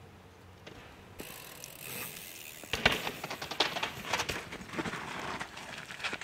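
Mountain e-bike ridden fast over rock and trail: tyre hiss builds, then from about three seconds in comes a rapid run of knocks and rattles from the wheels, chain and frame over bumps. It cuts off suddenly.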